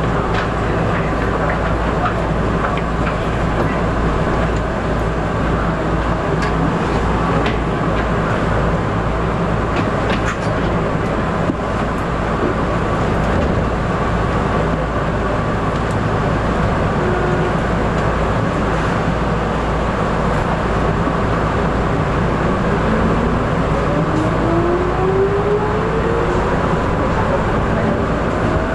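Tokyu 8500 series electric train running at speed, a loud steady rumble of motors and wheels on rail heard from on board. From about two-thirds of the way in, a whine rises steadily in pitch as the train picks up speed.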